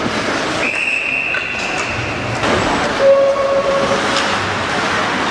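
Hockey arena: a long, steady, high-pitched whistle blast, then a shorter, lower horn blast about three seconds in, over steady crowd and rink noise.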